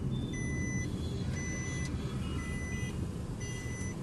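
An electronic vehicle warning beeper sounds a steady, even beep roughly once a second, each beep about half a second long. Under it is the low rumble of the cab's engine and road noise, heard from inside the car.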